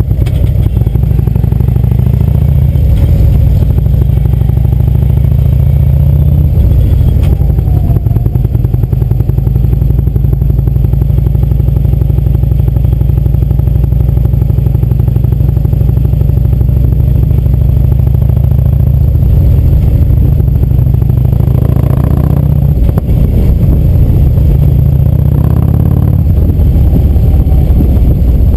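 Harley-Davidson touring motorcycle's V-twin engine running steadily while riding, heard from the saddle, with the engine note shifting briefly twice near the end.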